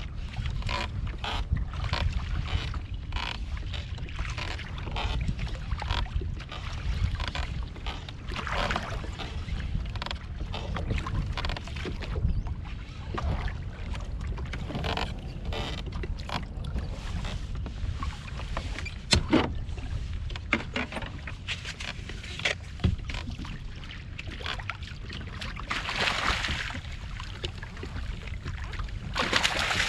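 Wind rumbling on the microphone and water slapping and splashing against a kayak hull while a fish is played on rod and line. Near the end comes louder splashing as a halibut thrashes at the surface beside the net.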